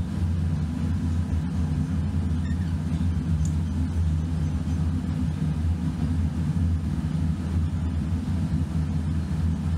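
Steady low mechanical rumble of a machine running, even and unbroken throughout.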